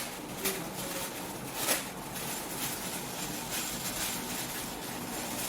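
Parts of a flat-pack aluminium sink being handled during assembly: three sharp knocks, the loudest a little under two seconds in, over a steady hiss.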